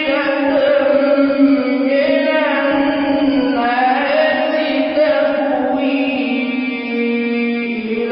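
A young man's voice reciting the Quran in melodic tajweed chant, holding long drawn-out notes that slide from one pitch to the next.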